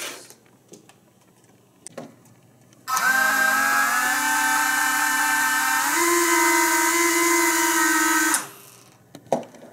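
The Air Hogs X-wing RC toy's small electric motors and propellers whirring in a motor test: a steady high whine starts about three seconds in, creeps up, steps up in pitch about six seconds in, and cuts off after about five and a half seconds. All engines are running.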